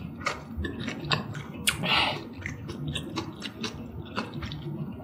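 Close-miked chewing and wet mouth clicks of a person eating malatang noodle soup, with a brief louder slurp about two seconds in.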